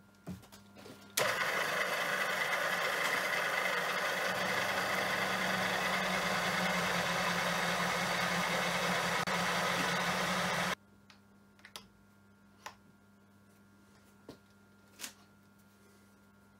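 Pillar drill running under load, a piloted counterbore cutter sinking a recess for a ball-bearing race: a steady motor hum under a loud hiss of cutting. It starts suddenly about a second in and stops abruptly near eleven seconds, followed by a few light clicks.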